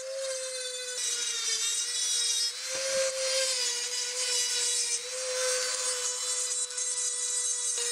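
Handheld rotary tool with a mounted grinding stone running at a steady high whine while grinding rust and pitting off a steel ball peen hammer head. The grinding hiss swells and fades as the stone is pressed against the metal and moved, the motor's pitch dipping slightly under load, with a short knock about three seconds in.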